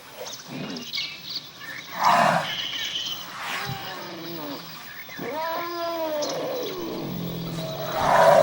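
Animal calls: a loud harsh call about 2 s in and another near the end, with drawn-out pitched cries that rise and then fall between them.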